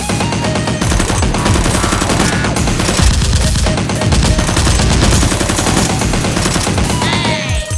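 Rapid automatic gunfire, continuous bursts of shots with no pause.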